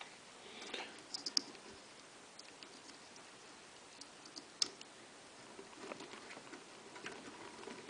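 Faint clicks, taps and rustling of small plastic PC fan power connectors and cables being handled and pushed together, with one sharper click about halfway through.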